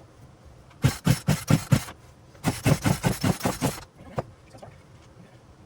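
Two pulls on a Poulan Pro 42 cc chainsaw's recoil starter, each a quick run of rhythmic chugs as the two-stroke engine turns over without catching. A single click follows about four seconds in.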